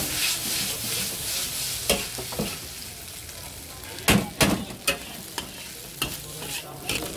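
Chow mein noodles sizzling in a large steel wok as a long metal spatula scrapes and knocks against the pan, tossing them. A cluster of sharp metal clangs comes about four to five seconds in, over the steady frying hiss.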